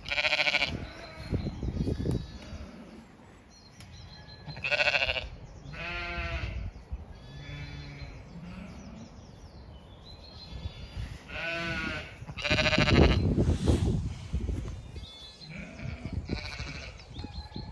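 Zwartbles sheep bleating: about five separate bleats of differing pitch, spaced a few seconds apart. Between them there is a low rumbling noise, loudest about two-thirds of the way through.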